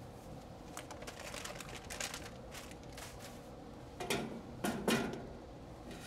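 Gloved hands working inside an air conditioner's outdoor-unit control box: a run of light clicks and taps, then two louder rustling scrapes about four and five seconds in, over a faint steady hum.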